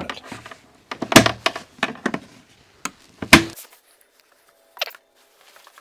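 Blum clip-top straight-arm hinges snapping onto their stamped-steel mounting plates on a cabinet side: sharp clicks and knocks, loudest about a second in and again about three seconds in. A short falling squeak follows near the end.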